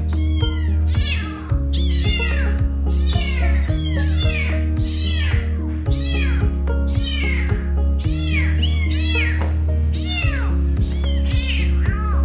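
Young kittens meowing over and over, high-pitched cries that rise and fall, about two a second: the kittens are crying for their mother. Background music with a steady bass line plays underneath.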